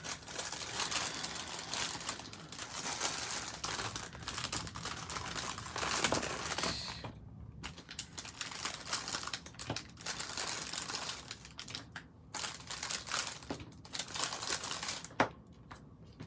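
Clear plastic bag crinkling and rustling as rolls of washi tape are pulled out of it, with a few light clicks as the rolls are set down on the tabletop.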